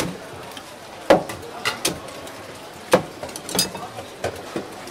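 Knife chopping and cracking cooked red king crab shell on a cutting board: a string of sharp, irregular knocks and cracks, the loudest about a second in and again near three seconds, over a steady background hum.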